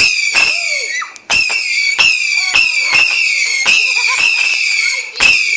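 Whistling firework shrieking at a high, steady pitch in rapid pulses, about two or three a second, each pulse starting with a sharp crack.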